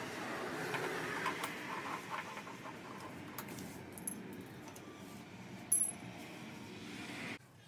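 Small metal clips and screws being pried off a dashboard frame with a screwdriver and set down on a tiled floor: scattered light clicks and scrapes, with one sharp metallic clink a little before six seconds in. The sound drops away suddenly near the end.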